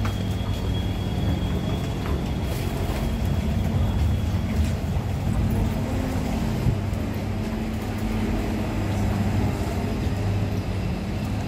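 Kawasaki Heavy Industries C151 MRT train, running on permanent-magnet synchronous traction motors, pulling out of an underground station. It makes a steady low rumble as it gathers speed past the platform.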